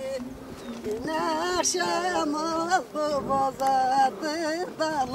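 Unaccompanied voice singing a Turkish folk song (türkü) in free rhythm: a held note fades at the start, then from about a second in the voice moves through wavering, ornamented runs.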